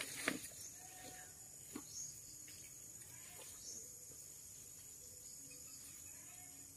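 Insects trilling steadily in continuous high tones, with a couple of faint clicks in the first two seconds.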